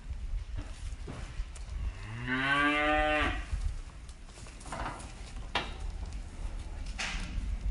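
A cow moos once, a rich call of about a second, rising slightly in pitch, about two seconds in. A few short knocks and a steady low rumble sit behind it.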